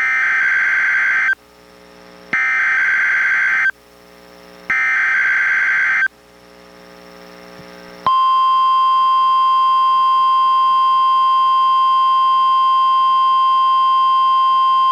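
NOAA Weather Radio test alert played through a Reecom R-1630 weather radio. Three short bursts of the SAME digital header come about a second apart, with faint radio hiss between them. Then the steady 1050 Hz warning alarm tone starts about eight seconds in and holds.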